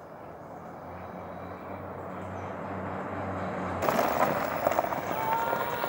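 Golf cart driving up, its steady motor hum growing louder as it approaches, then passing close by about four seconds in with a sudden loud rush of noise.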